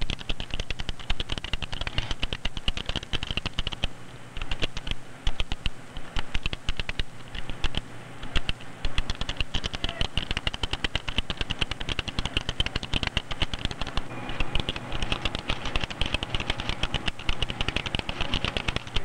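Linotype hot-metal typesetting machine keyboard being typed on rapidly: a dense, continuous clatter of key clicks over a steady low hum.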